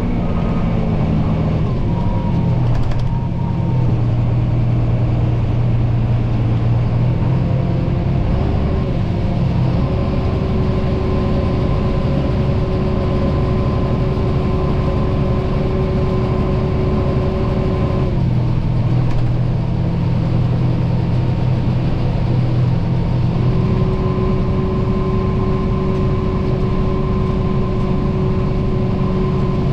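Heavy diesel farm machinery running steadily under load: a deep engine drone with a higher whine on top that steps in pitch a few times and drops out briefly about two-thirds of the way through.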